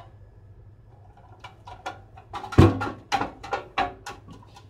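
A series of clicks and knocks from a UV sterilizer cabinet being handled and turned over on a workbench, with one heavy thump about two and a half seconds in.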